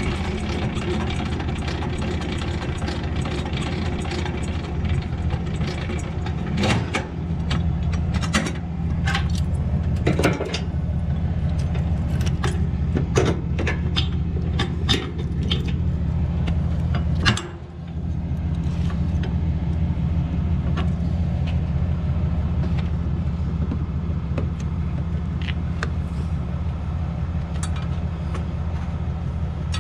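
Truck engine idling steadily while a trailer is hitched to a pintle hook, with chain links clinking and sharp metal clanks, mostly in the middle stretch, as the safety chains are hooked on.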